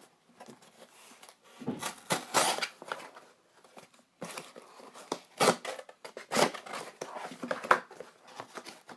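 Knife blade cutting along the seam of a corrugated cardboard box, giving irregular rasping strokes of cardboard scraping and tearing.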